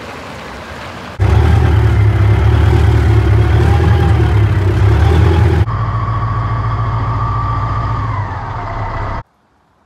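Caterpillar 3408 V8 diesel engine of a Kenworth C540 running steadily, in spliced clips. It comes in loud a little over a second in, cuts to another, slightly quieter take of the engine running about halfway through, then cuts off abruptly near the end.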